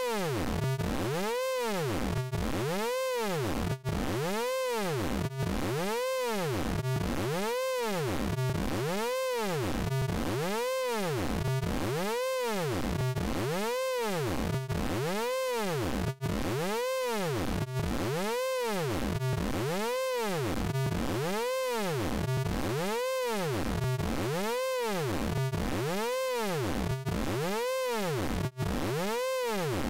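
Synthesized vocoder tone from the Orange Vocoder plug-in, a buzzy pitched sound that swoops up and down over and over, about once every one and a half seconds, at a steady level.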